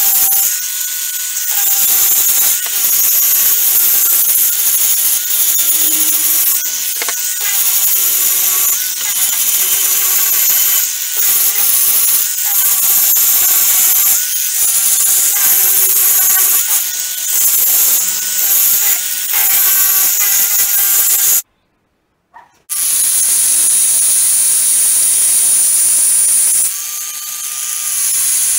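A tool working the steel motorcycle brake disc in repeated strokes, one every second and a half or so, with a harsh scraping hiss and the disc ringing at a few steady pitches during each stroke. The sound cuts out completely for about a second two-thirds of the way through, then goes on as a steadier hiss.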